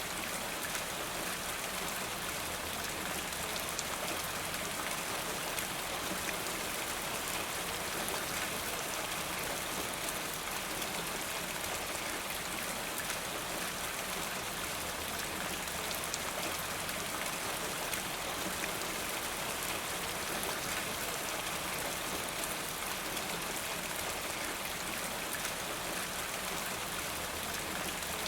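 Steady rain falling, an even hiss of many close drops with no let-up.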